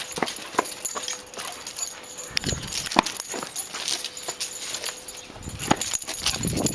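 A large dog, a Rhodesian ridgeback and American bulldog mix, runs about with her paws striking dirt and concrete in a string of irregular knocks and thuds.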